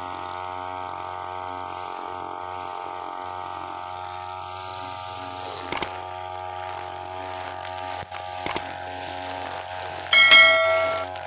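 UMA UM328 brush cutter's small petrol engine running steadily. Two click sound effects come about six and eight and a half seconds in. A short ringing notification-bell chime near the end is the loudest sound.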